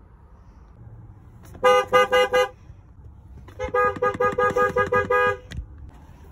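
Car horn honked in four quick short beeps, then a rapid string of about a dozen short beeps, roughly six a second.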